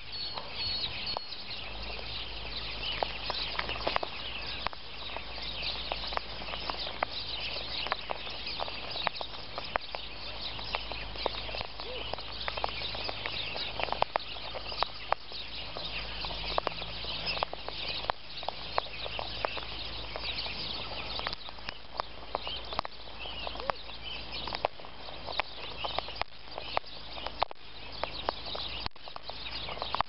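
Sulphur-crested cockatoos pecking and cracking birdseed close to the microphone: a dense, irregular run of sharp clicks and taps, with short high bird chirps over it.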